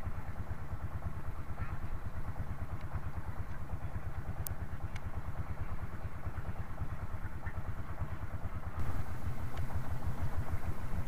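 Small boat engine running at low speed, with a fast, even low beat; it grows louder about nine seconds in. A short sharp click about four and a half seconds in.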